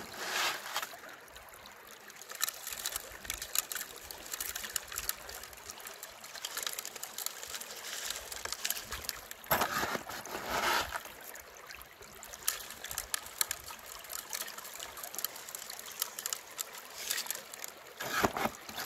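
Stream water running through an aluminium gold-prospecting sluice box, with gravel and small stones ticking and rattling as they are washed over the riffles and mat. A louder rush of water and gravel comes about ten seconds in.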